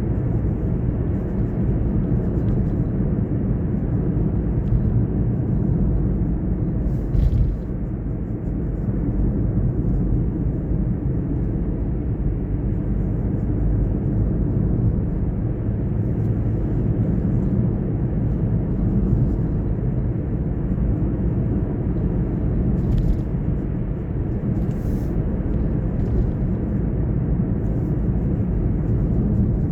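Car driving along a road: steady low rumble of engine and tyres, with a few faint ticks and knocks here and there.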